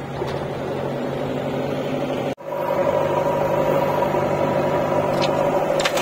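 Diesel engines running steadily: a John Deere tractor pulling a loaded trolley, then, after a sudden cut about two seconds in, the JCB backhoe loader and tractors at the loading site with a louder steady hum.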